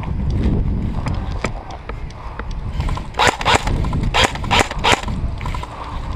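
Airsoft guns firing: about five sharp cracks a few tenths of a second apart, between about three and five seconds in, over a steady low rumble of movement and wind on the microphone.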